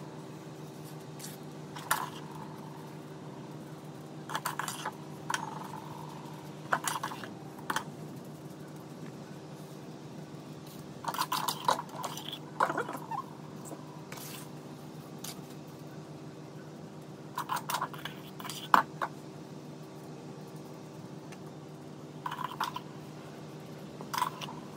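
Hands packing and smoothing a wet salt crust over fish on a metal baking sheet: scattered short scrapes and clicks of salt and fingers against the tray, over a steady low mechanical hum.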